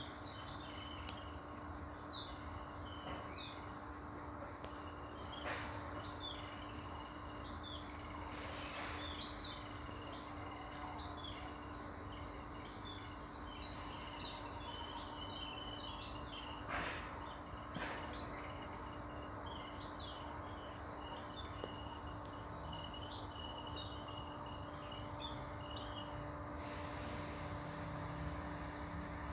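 Wild birds chirping: many short, high calls repeated every second or so. A steady high hum runs behind them and stops near the end.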